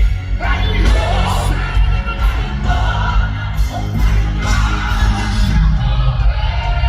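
Live gospel worship band playing with singing over a strong, steady bass.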